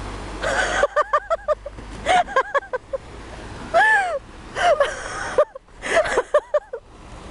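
Water rushing and splashing from the water slide outlet into the pool, fading about a second in. Then high-pitched voices calling out in quick runs of short cries and a few longer rising-and-falling calls.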